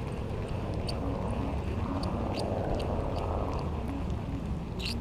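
Wind rumbling on the microphone, with faint scattered clicks as a baitcasting reel is cranked in.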